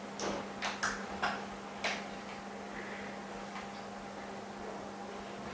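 About five short, sharp scratchy clicks in the first two seconds, with a few fainter ones later, from fingers working an LCD panel in a metal glue-removal mould. A steady low electrical hum runs underneath.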